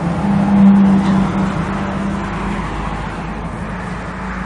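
An engine running with a steady low hum that swells about a second in, then eases off slightly.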